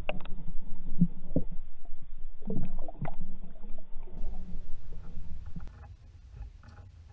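Stream water sloshing and knocking against a camera held under the surface, heard muffled: a low rumble with irregular sharp knocks and clicks as a brook trout is held in the water by hand. It falls away to a faint low hum about six seconds in.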